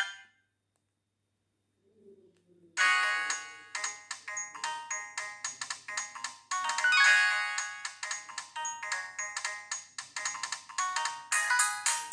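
Sony Ericsson Z320i mobile phone playing a polyphonic ringtone through its small speaker: a quick melody of short notes that starts about three seconds in after a pause. The melody gets louder near the end.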